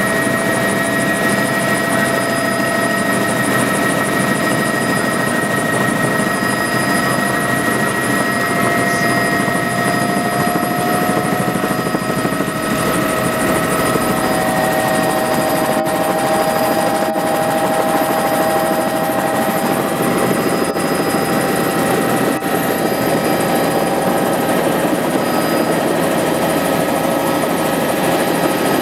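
Helicopter turbine and rotor noise heard from inside the cabin, a loud steady drone with a high whine, during a low descent to land. The whine shifts slightly in pitch about halfway through.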